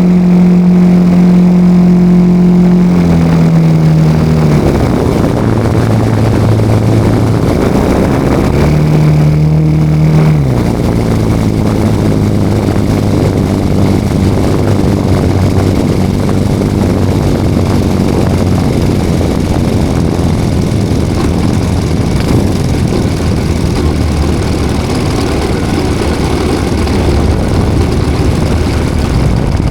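A 40 cc engine on a radio-controlled L-19 Bird Dog model plane, heard from on board. It runs at a steady high note, drops in pitch about three seconds in, comes back up briefly around nine seconds, then drops again about ten seconds in to a lower, rougher note with a steady rushing noise.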